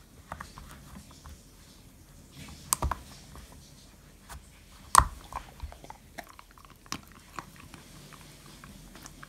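Dog chewing and gnawing at a rubber treat-dispensing chew toy, teeth clicking and crunching on it, with two sharp louder knocks about three and five seconds in.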